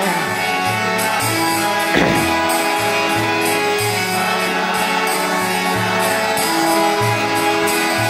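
Harmonium sustaining the kirtan melody in steady held notes, with jingling hand cymbals keeping an even beat and a low drum thud about once a second.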